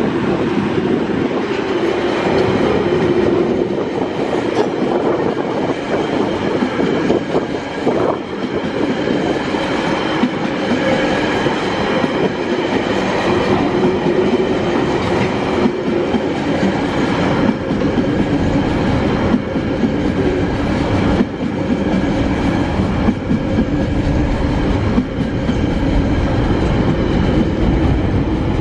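Freight train passing close by: TasRail locomotive TR13's diesel engine goes by in the first few seconds, then a long string of container wagons rolls past, its wheels clattering over the rail joints with irregular knocks.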